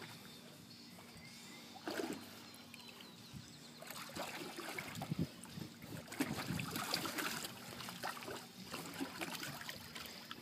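Water sloshing and splashing in a plastic stock-tank pool as a tiger shifts about in it: one splash about two seconds in, then irregular sloshing from about four seconds in.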